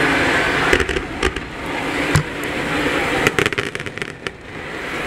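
Fireworks going off: a series of sharp bangs and crackles, with a quick run of cracks about three and a half seconds in.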